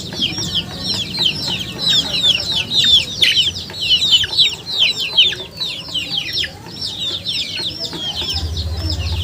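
Many chickens, likely a brood of chicks, peeping without a break: a dense stream of short, high calls that fall in pitch and overlap. A low hum comes in near the end.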